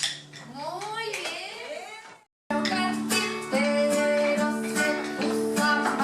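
Acoustic guitar accompanying a children's song, with children singing. Soon after the start the music drops away to a few sliding tones that rise and fall, then the sound cuts out completely for a moment before the guitar and singing start again.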